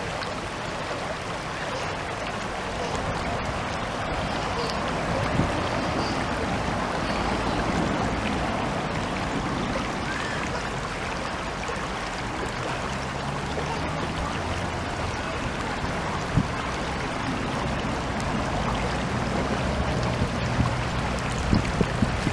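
Mountain stream water flowing, a steady rushing.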